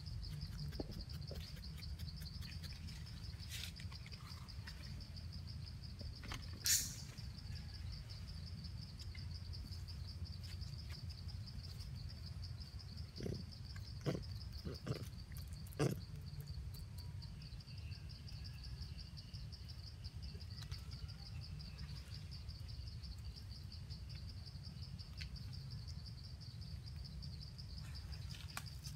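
Steady high-pitched insect chorus, a rapid pulsing trill, over a low rumble, broken by a few sharp clicks: the loudest about seven seconds in, and a short cluster of three near the middle.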